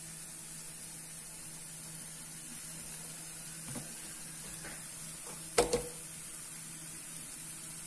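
Faint steady hiss with a low hum, a soft tap a little before four seconds in, and one sharp knock about five and a half seconds in.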